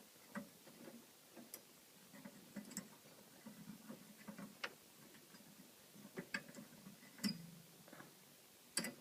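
Faint, scattered clicks and light taps of hands working the spring clips that hold the HID bulb in a BMW Z4 M headlight, releasing the bulb. The sharpest clicks come about seven seconds in and just before the end.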